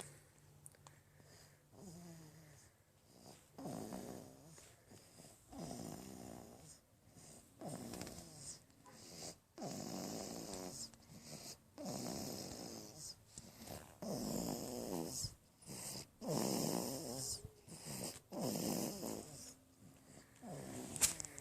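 Baby snoring in sleep, one snore about every two seconds, each swelling and fading. There is a sharp click just before the end.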